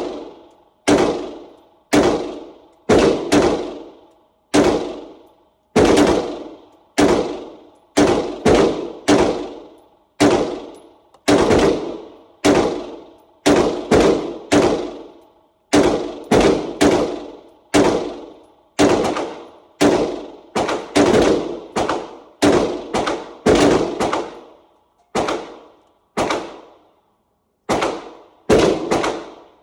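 AR-15 rifle fired semi-automatically in a long, steady string of several dozen shots, some in quick pairs, each with a short echo.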